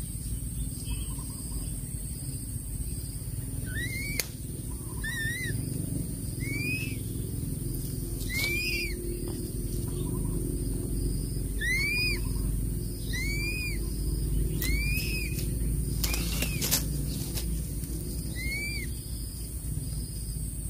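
Crested serpent eagle chick giving begging calls as it is fed: about nine short, high, arched peeps, one every one to three seconds, over a steady low rumble. A couple of sharp clicks come about sixteen seconds in.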